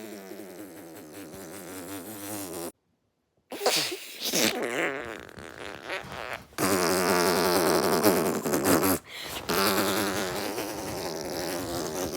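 Long, raspy, wobbling fart noises in several stretches, broken by a short silence about three seconds in.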